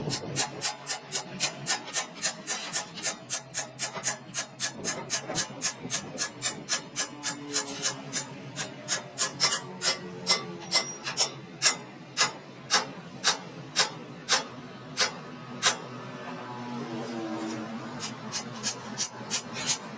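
Metal being hand-filed in rapid, regular strokes, about three a second, slowing later and pausing briefly near the end before resuming.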